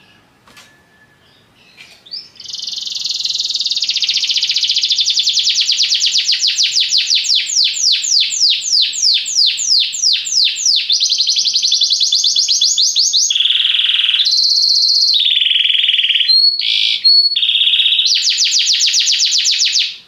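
Domestic canary singing, starting about two seconds in: a long song of rapid trilled phrases that changes pace and pitch several times. A few clear whistled notes come late on, then a fast trill, and the song stops abruptly.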